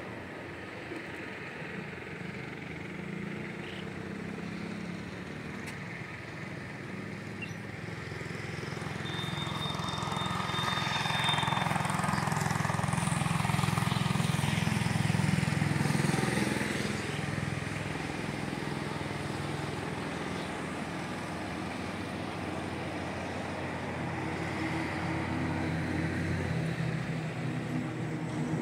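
A motor engine running, with a low steady hum that grows louder to a peak about halfway through and then eases back, as of a vehicle passing. A short high steady tone sounds briefly about a third of the way in.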